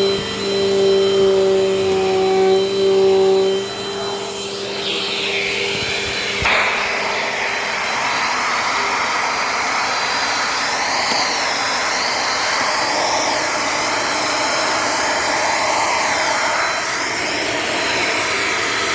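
Vintage Dirt Devil Dynamite Plus vacuum cleaner running with its hose in use. It starts as a motor whine, and about six seconds in the sound changes suddenly to a steady rushing of air.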